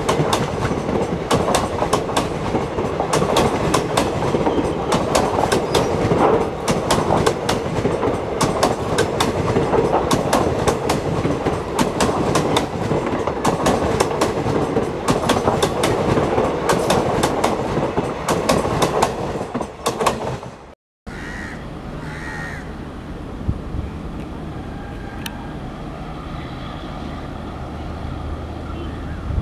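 Passenger train coaches passing close by at speed: a steady rolling noise with a rapid clickety-clack of wheels over rail joints. About two-thirds of the way through it cuts off abruptly. A quieter, steady low hum of a distant locomotive follows.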